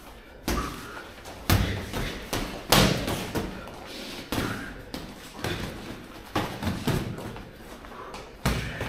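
Sparring boxers in a ring: irregular sharp thuds of gloved punches landing and feet moving on the ring canvas. There are about eight to ten hits, the loudest in the first three seconds.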